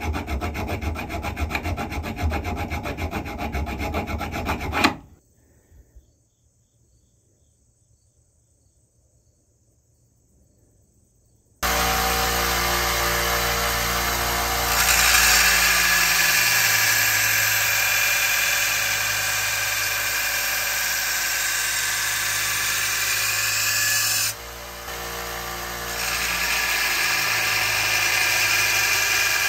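Round hand file rasping back and forth on steel, stopping about five seconds in. After several seconds of near silence, a small bench belt grinder starts running steadily, and steel is pressed against the moving belt, adding a louder grinding hiss. The grinding breaks off briefly about two-thirds of the way through, then resumes.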